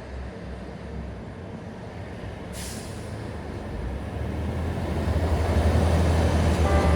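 A heavy vehicle's low engine rumble grows steadily louder as it approaches, with a short hiss about two and a half seconds in.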